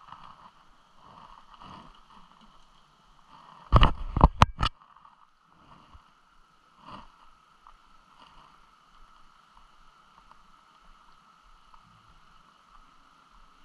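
Steady rush of river water below a dam, broken about four seconds in by a quick run of loud, sharp knocks close to the microphone.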